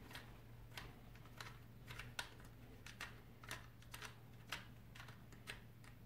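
Faint, short clicks, about two a second, of an Allen key turning the screw of a plastic tail-light bracket being tightened under a bicycle saddle.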